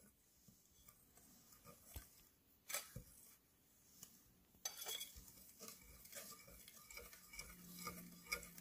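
Wire whisk stirring a dry flour mixture in a glass bowl: faint, with a few light clicks in the first half and a steadier soft scraping from about halfway.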